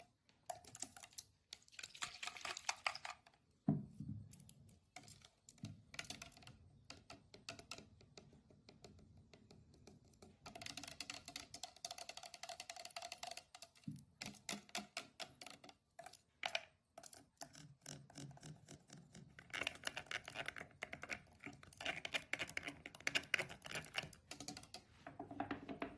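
Long fingernails and metal claw rings tapping and scratching on a tattoo ink bottle in fast runs of clicks, with short pauses between runs and a low knock about four seconds in.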